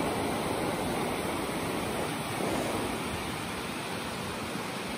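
River rapids rushing, a steady noise of whitewater pouring over rocks.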